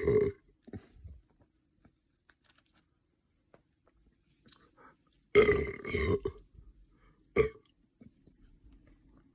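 A person burping: the end of one burp right at the start, a longer burp about five and a half seconds in, and a short sharp burp about two seconds after that, with faint mouth clicks in the quiet between.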